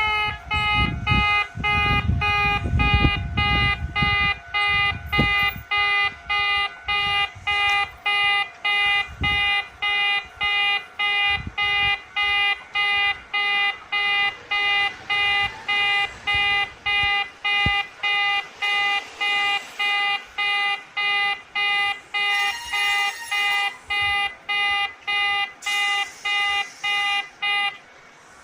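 Old-type electronic level-crossing warning alarm at a Japanese railway crossing, its distinctive 'pe-pe-pe' tone beeping evenly about twice a second, then stopping shortly before the end. A low rumble runs under the first few seconds.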